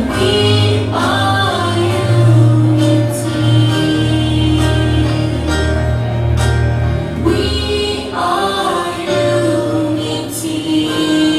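A group of schoolchildren singing a pop-style song together over a recorded backing track with a steady bass and beat.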